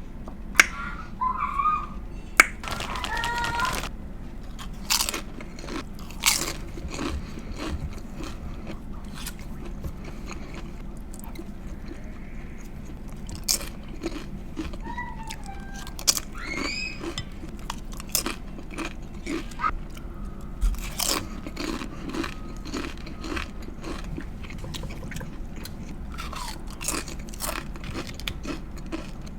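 Close-miked eating of beef sausage and vegetables: irregular biting, crunching and chewing, with sharp crunches and mouth smacks scattered throughout.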